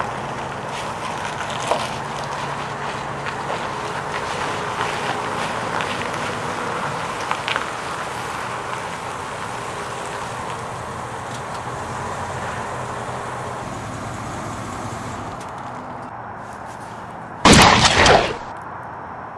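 A steady, noisy background with a faint hum, then near the end one loud, sudden bang lasting under a second.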